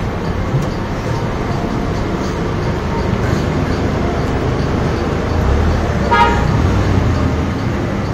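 Steady low rumble of a moving vehicle, with one short horn toot about six seconds in.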